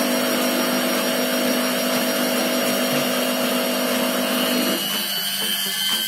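Weissgauff WMI 6128D built-in front-loading washing machine in its final spin, the drum turning fast: a steady motor hum and whine over a rushing noise. About five seconds in, the lower hum drops away while a high whine carries on.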